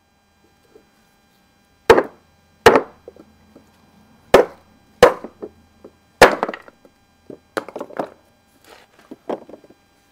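A hatchet striking a laminated veneer lumber (LVL) board to split it open: five sharp wooden whacks in the first six seconds or so, followed by a few lighter knocks as the split wood is worked apart.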